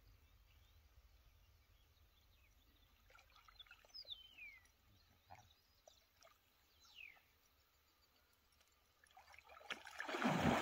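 Faint bird chirps over a quiet pond, then near the end loud splashing of water as a cast net is thrown by a man wading in it.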